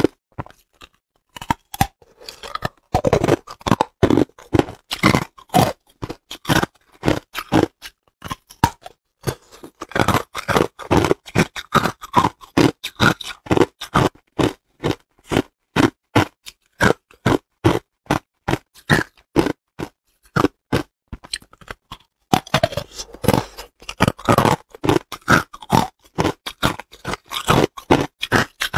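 Hard clear ice being chewed close to the microphone: rapid sharp crunches, several a second, with short pauses near the start and about two-thirds of the way through.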